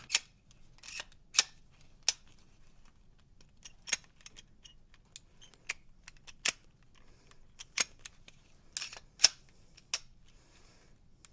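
Glock pistol being handled in an attempt to field strip it: a series of sharp, irregular clicks and snaps of the slide and parts, about a dozen spread over several seconds.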